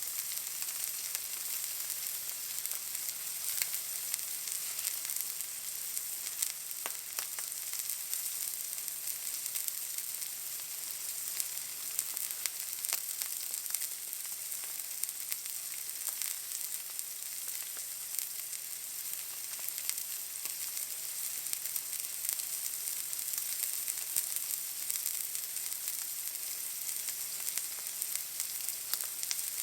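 Steak searing in a hot pan: a steady high sizzle dotted with small spits and pops of fat.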